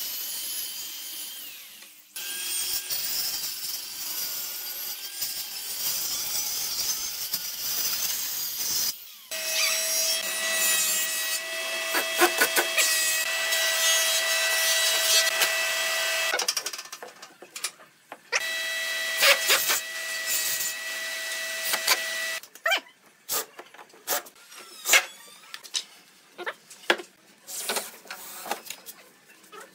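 Power tools working wood in several short edited segments, a tool motor whining at a steady pitch through the middle. Near the end comes a run of sharp knocks and taps.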